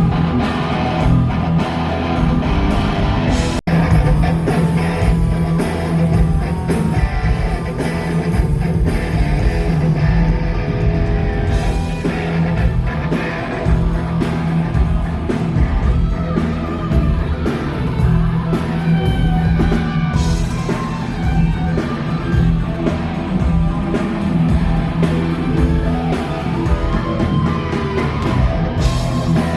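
Live rock band playing loud, with an electric guitar taking the lead. The sound drops out for a moment about three and a half seconds in.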